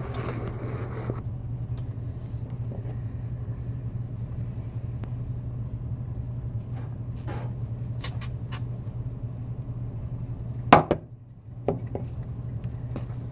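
Steady low hum of room noise, with rustling and light knocks as the phone camera is handled and moved at the sink, and one sharp knock near the end.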